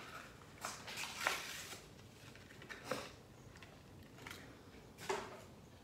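Hot Wheels toy-car packaging being worked open by hand: a few scattered crinkles and clicks of cardboard and plastic.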